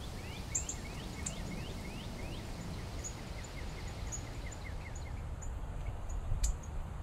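Outdoor ambience with a small bird singing a fast series of short upward chirps that later slows and softens, other high chirps, and a low background rumble. A single sharp click comes near the end.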